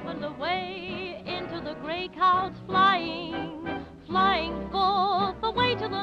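Background music: an old-fashioned tune whose melody wavers in pitch, changing note every fraction of a second.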